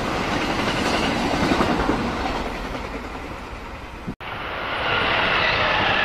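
Train wheels rolling on rail with clattering over the joints, fading as the train moves away. After a sudden cut about four seconds in, another train is passing close by: a steady running noise with a whine held on a few even pitches.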